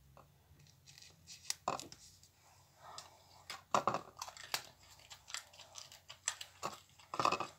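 Irregular clicks, soft knocks and rustling from objects being handled close to the microphone, with the loudest knocks about four seconds in and near the end.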